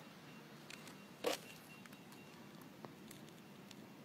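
Faint room tone with a few light clicks and one short scuff a little over a second in.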